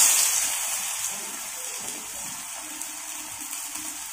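Besan-battered fritters shallow-frying in a little oil in a nonstick frying pan: a steady sizzling hiss, loudest as it starts and then settling.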